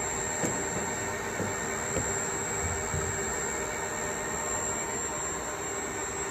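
Steady machinery hum in a machine shop, with a constant mid-pitched tone and a thin high whine, and a few faint knocks in the first two seconds.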